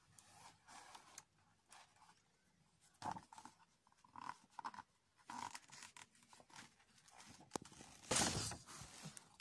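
Pages of a paper picture book being handled and turned: faint scattered rustles and soft clicks, with a louder rustle about eight seconds in as the page goes over.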